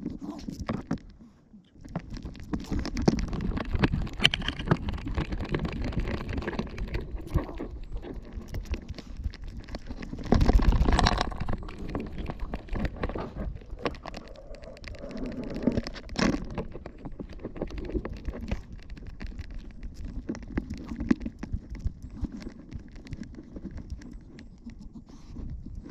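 Rubbing and rustling from a 360° camera strapped to a Yorkshire terrier's back as she walks and sniffs on a leash: fur, harness and leash moving against the camera, with irregular knocks and a louder low rumble for about a second near the middle.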